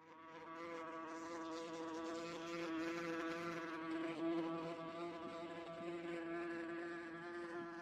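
Wasp buzzing in flight: one steady, even drone that sets in just after the start and holds without a break.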